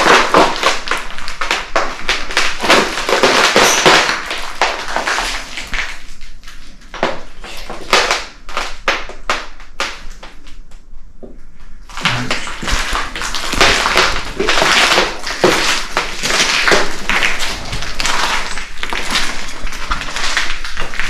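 Footsteps and knocks on debris: a dense run of irregular crunches, taps and thuds, which eases off for a couple of seconds around the middle.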